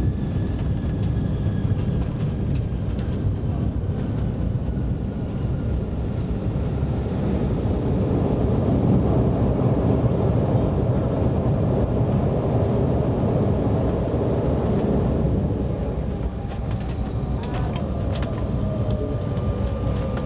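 Cabin noise of an Embraer 175 rolling out on the runway after landing. Steady rumble of the wheels and airflow under the thin whine of its GE CF34 turbofans, which falls slowly in pitch as the engines wind down. The noise swells a little midway, then eases as the jet slows, with a few light clicks near the end.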